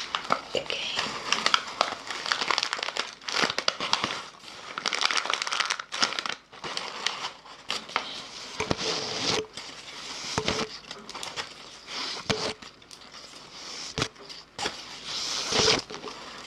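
Close-miked crinkling and crackling in irregular bursts, with a few short low hums in between.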